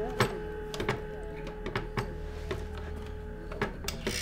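Telephone dial tone from the handset of a black rotary telephone: one steady single tone that stops about three and a half seconds in. Sharp clicks and knocks of the handset and phone being handled come through it.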